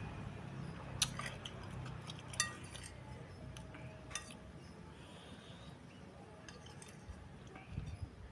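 Close-miked eating of small meatballs and noodles: soft chewing, with a few sharp clicks and a ringing clink about two and a half seconds in, like a spoon on a bowl.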